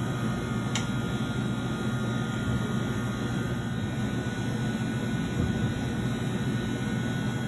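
Steady roar of commercial kitchen ventilation, an exhaust hood fan running over the fryers, with a low hum beneath it. A single sharp click comes just under a second in.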